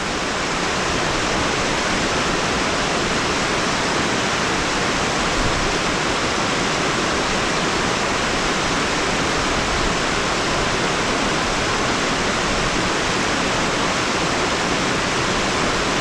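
Small mountain waterfall cascading over boulders into a shallow creek: a steady, unbroken rush of water.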